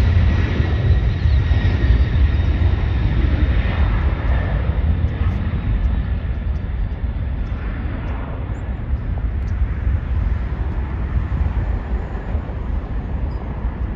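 Jet engines of a departing Boeing 767-300 at takeoff thrust, fading as the airliner climbs away; the higher-pitched part dies off over the first few seconds, leaving a steady low rumble.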